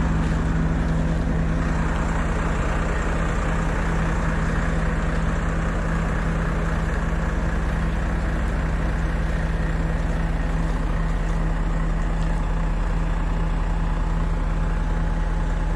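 Heavy diesel engine idling with a steady low drone that neither rises nor falls.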